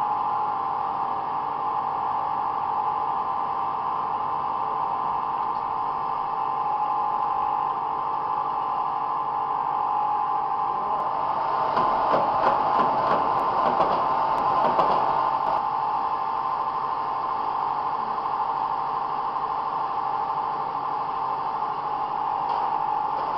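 Mobile foam-concrete mixing and pumping unit running with a steady mechanical hum. From about 11 to 16 seconds in, a louder stretch of rattling and clattering rises over the hum and then dies away.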